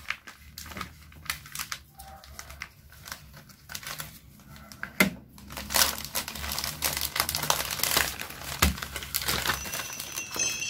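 Plastic courier mailer crinkling and crackling as it is handled and opened by hand. The crackles grow denser and louder in the second half, with a few sharper ones along the way.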